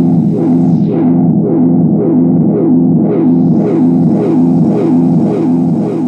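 Korg Monotron Delay analogue synthesizer droning with a repeating falling pitch sweep from its LFO, about two to three sweeps a second, over a layer of hiss. The tone dulls about a second in and brightens again about three seconds in as the knobs are turned.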